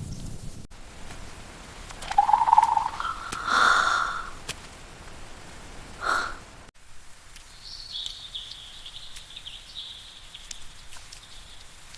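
Countryside ambience with a few short animal calls in the first half, then a steady high-pitched chirping from about halfway.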